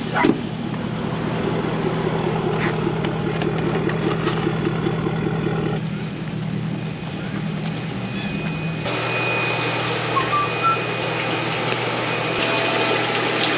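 Pickup truck engine idling steadily. From about nine seconds in, a steady watery hiss with a thin whine follows: the pumps and spray pipes of live-bait tanks running.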